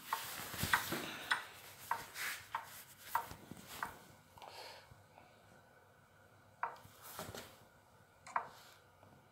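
Chess app's wooden piece-move sound effect, a short click played as each move is stepped through in the game review. A quick run of about seven clicks comes in the first four seconds, then a few more spaced farther apart.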